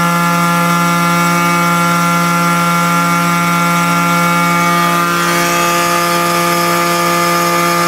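CNC milling machine running steadily, its spindle turning a diamond burr bit that is slowly milling 3 mm glass sheet under water: an even hum with a stack of high whining tones over a hiss. The machine is vibrating a lot as it cuts.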